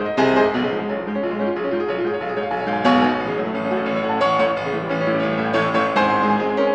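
Piano music playing, with chords struck hard about at the start, three seconds in, and again six seconds in.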